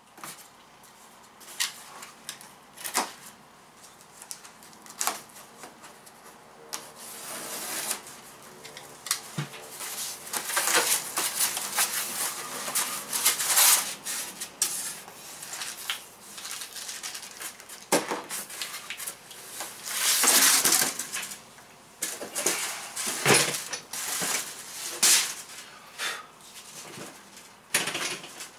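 A cardboard shipping box being unpacked by hand: flaps and packing foam rustling and scraping in irregular stretches, with scattered knocks and clunks as the contents are handled.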